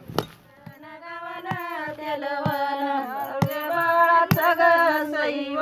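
Folk song: a woman sings long, wavering melodic lines over a percussion beat struck about once a second. A single sharp knock opens it.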